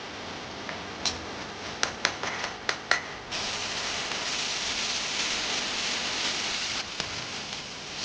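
Food sizzling in hot oil: a steady sizzle broken by a few sharp clicks between about one and three seconds in, then a louder sizzle from about three seconds in.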